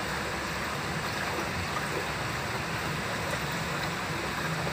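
Steady rushing hiss with no distinct events.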